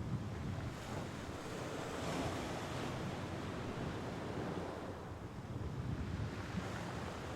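Mediterranean Sea waves washing on the shore, a continuous rushing surf. A wave breaks more brightly about two seconds in.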